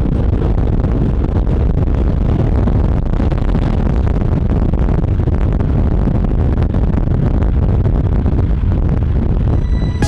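Loud, steady low rumble of a car on the move, with no distinct engine pitch standing out.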